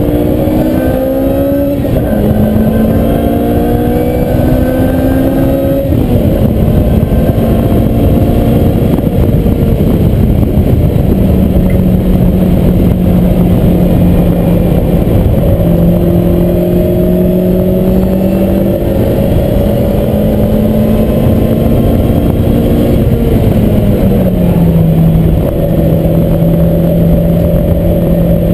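Lotus Exige engine heard from inside the cabin on track at speed, over steady road and wind noise. Its note climbs and drops sharply about 2 and 6 seconds in, holds fairly steady through the middle, and falls away about 24 seconds in.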